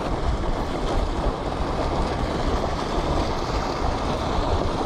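Steady rushing of water churning out of a canal spillway, with wind buffeting the microphone in a fluttering low rumble.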